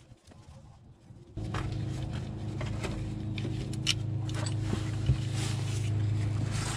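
Light clicks and taps of a hand tool on the bolts of a Haldex coupling pump as they are refitted, over a steady low hum that starts about a second and a half in.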